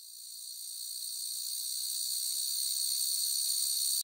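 A steady, high-pitched insect chorus, a shrill hiss with almost nothing low, growing louder over the first couple of seconds and cutting off suddenly at the end.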